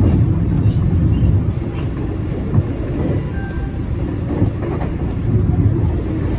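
Running noise of a JR 521 series electric train at speed, heard from behind the driver's cab: a steady low rumble of the wheels on the rails.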